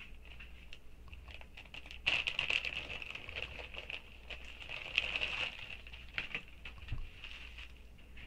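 Plastic wig packaging crinkling and rustling as it is opened by hand, in irregular crackly bursts that thicken about two seconds in and again near the middle. A steady high-pitched sound runs underneath throughout.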